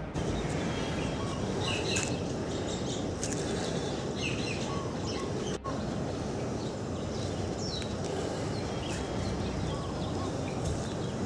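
Small birds chirping in short scattered calls over a steady rushing background noise, which cuts out for an instant about halfway through.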